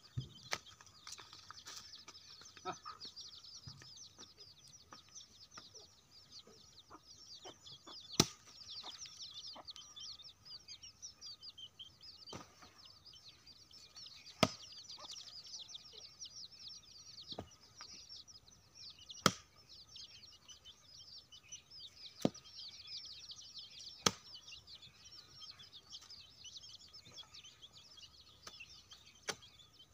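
Long-handled digging hoe chopping into dry, hard earth: sharp thuds every two to five seconds with softer scrapes of soil between them, over a steady high chorus of chirping birds.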